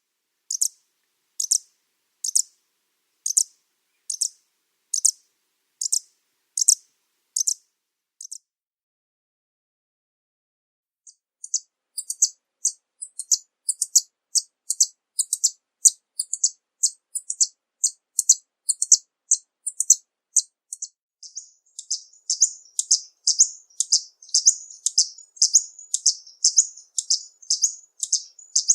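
Violetear hummingbird (genus Colibri) giving high, sharp chip notes. It repeats single chips a little under once a second, pauses about a third of the way in, then runs into a rapid, dense series of chips that grows busier near the end.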